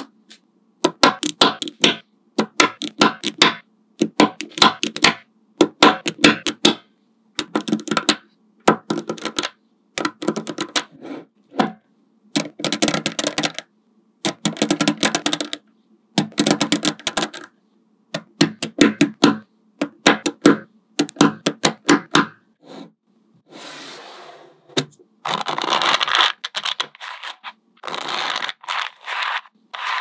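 Small magnetic balls clicking and snapping together in quick runs of sharp clicks, with short pauses between the runs. In the last few seconds the clicks give way to a rougher rattling and scraping of the balls.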